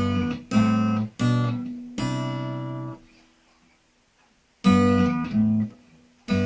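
Acoustic guitar strumming chords. Four strokes come in quick succession, the last left ringing. After a pause of about a second and a half come two more strums, and a fresh one starts near the end.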